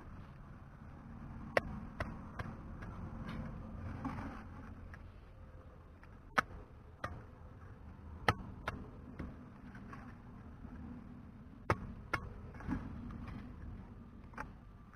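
Wooden stick jabbed and scraped into wet clay soil, giving about ten sharp, irregular knocks and taps.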